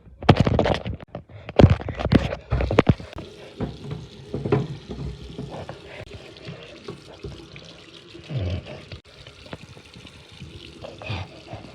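Water running steadily, as from a tap, with loud irregular splashing over the first three seconds and a few smaller splashes later.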